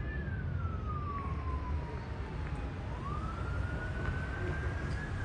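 Police car siren in a slow wail, one tone rising and falling in pitch over about five seconds, over a steady low rumble.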